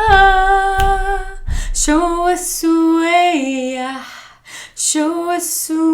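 A woman singing a cappella, wordless vocal play: a long held note, then short phrases that step down in pitch, with audible breaths between them. Three low thumps in the first second and a half.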